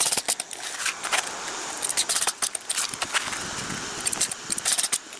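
Roofing work on asphalt shingles: an irregular scatter of sharp clicks and knocks with crackly rustling, as shingles are handled and nailed down with a pneumatic coil roofing nailer.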